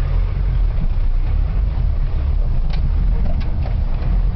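Toyota Land Cruiser BJ42's four-cylinder diesel engine running, a steady low rumble heard from inside the cab as it drives over rough off-road ground, with a few sharp knocks from the body a little past the middle.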